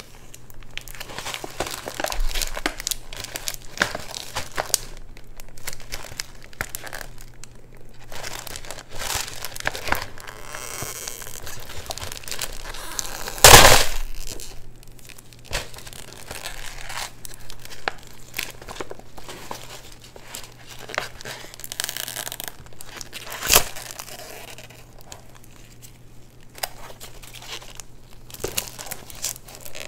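Paper fast-food wrappers and bags being handled and unwrapped, with many small crackles throughout. There is a loud sharp knock about halfway through and another, smaller one later.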